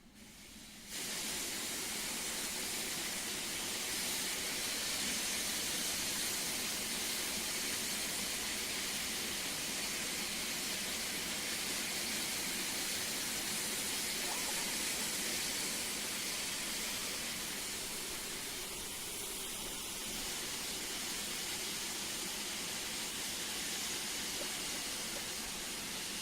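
Steam locomotive blowing off steam: a loud, steady hiss of escaping steam that comes up sharply about a second in and holds on without a break.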